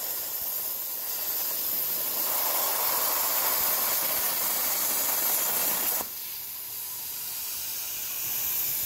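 CNC plasma cutter torch cutting steel plate: a loud, steady hiss as the arc burns through the metal. About six seconds in the arc stops and a softer hiss of air carries on.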